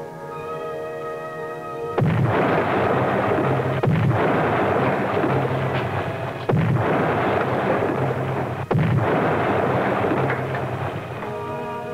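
Depth charges exploding around a submerged submarine: four heavy blasts with sudden onsets about two seconds apart, each running on into a long rumble, over a dramatic orchestral score. The score plays alone for the first two seconds and again near the end.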